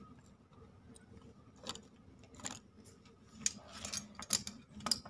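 Scattered light clicks and taps as fingers handle brittle pieces of freshly roasted multani mitti (fuller's earth), coming more often in the second half.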